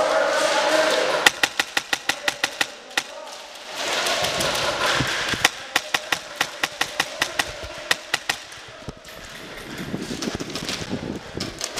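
Airsoft gunfire: two rapid strings of sharp cracks, about six a second, the first about a second in and the second about halfway through, with stretches of steady buzzing noise between them.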